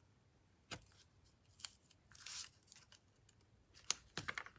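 Double-sided tape being pulled off its roll and torn off by hand, with faint clicks and a short tearing rasp about two seconds in, and light rustling of paper card being handled.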